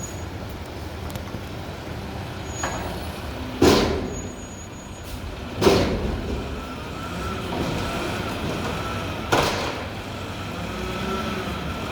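Mack McNeilus front-loader garbage truck running with a steady low rumble, broken by three sudden loud bursts of noise, with a faint wavering whine in the second half.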